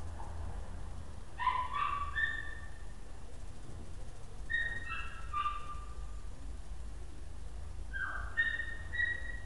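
A dog crying with high-pitched yelps and whines in three short bouts, a few seconds apart.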